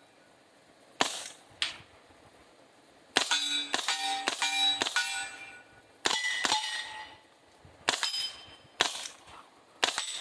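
Zenith MP5-clone 9mm carbine firing subsonic rounds through a Dead Air Mojave 9 suppressor: about ten quiet shots, singly and in a quick string near the middle, most followed by the short ringing clang of a steel target being hit.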